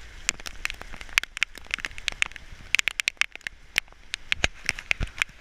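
Pouring rain, with a steady hiss and many close raindrops striking a hard surface in quick, irregular taps.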